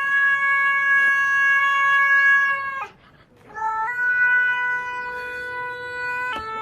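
Cat meows pitch-corrected by autotune into long, dead-flat sung notes. One held note lasts nearly three seconds; after a short gap, a second meow jumps up a step and holds, then steps again near the end.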